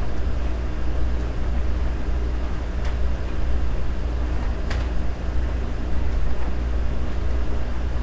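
Steady low hum and rumble with no music or voice, with two faint clicks about three and five seconds in.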